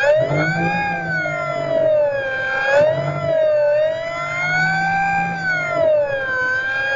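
Electric motor and propeller of an FMS Cessna 182 RC model plane whining in flight, the pitch rising and falling several times.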